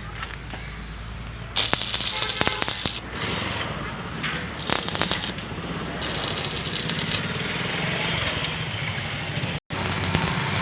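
Electric arc welding crackling in short bursts of a second or so, several times, over a steady low machine hum.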